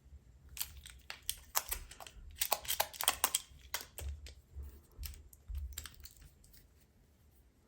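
Irregular small plastic clicks and taps as clamps are fitted onto a phone to hold its new glued back glass in place, dying away about six seconds in.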